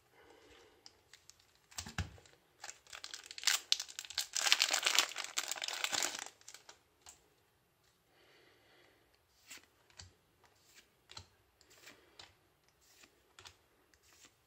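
Foil booster pack crinkling and tearing open in a dense burst lasting about three seconds, a few seconds in. After that, faint clicks of trading cards being slid one by one off the stack, roughly twice a second.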